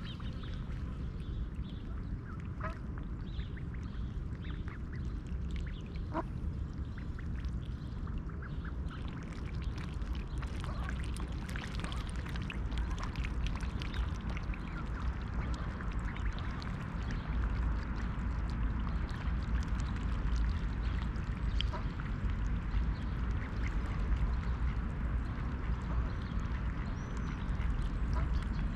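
Mallards quacking and calling softly among many short clicks, over a steady low rumble that grows a little louder about halfway through.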